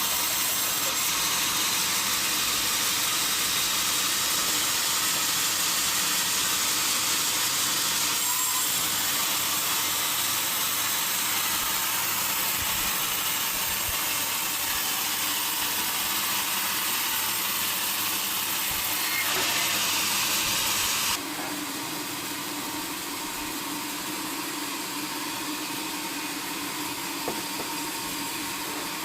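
Sawmill machinery running with a steady, loud hiss. About three quarters of the way through it drops suddenly to a quieter noise with a steady low hum.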